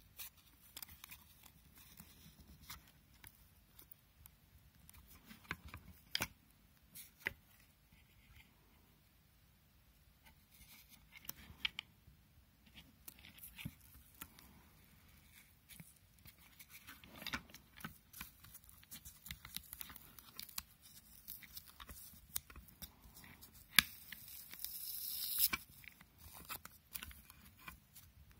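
Handling noise from an opened portable speaker: scattered clicks, taps and rustles of its plastic housing and foam padding. Near the end comes a louder rough rustle, like tearing, lasting about two seconds and opening with a sharp click.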